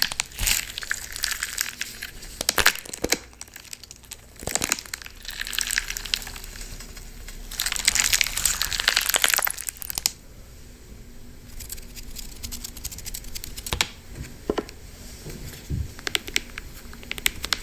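Crunchy wax slime being squeezed and cracked: bursts of crackling and crunching lasting a second or more, with single sharp cracks in between.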